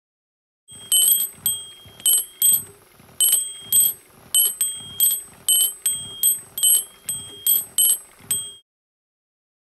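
Brass bell of a Rhythm Small World Maison karakuri clock struck over and over by its hammer, about fifteen bright ringing strikes at about two a second, stopping near the end. A faint steady hum runs beneath the strikes.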